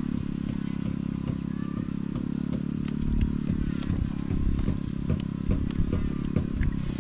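Low, steady hum of a running engine, with irregular clicks and knocks over it.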